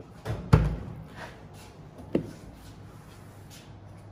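Dodge Ram 1500's front door being unlatched and opened: a small click, then a loud clunk with a deep thud about half a second in, and a sharper click around two seconds in.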